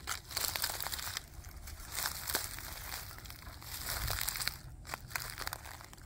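Footsteps in sneakers crunching through dry fallen leaves, twigs and acorns, about one step a second, with sharp little snaps and cracks within each step.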